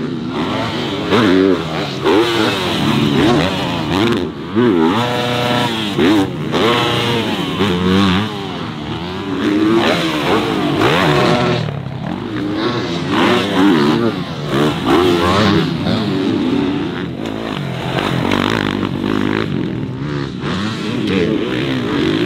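Dirt bike engine being ridden hard, its pitch rising and falling again and again as the throttle opens and closes.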